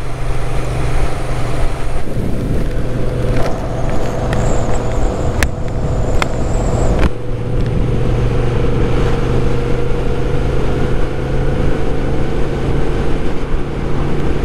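Moto Guzzi V7's air-cooled transverse V-twin running steadily while the bike cruises, with road and wind noise. A couple of sharp clicks sound about halfway through.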